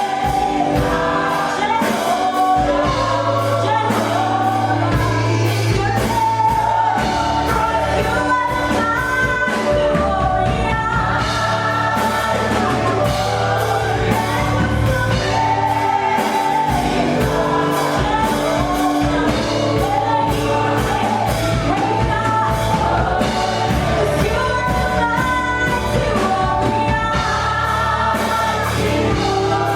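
Gospel worship song: several voices singing a melody over instrumental accompaniment with a held bass and a regular beat.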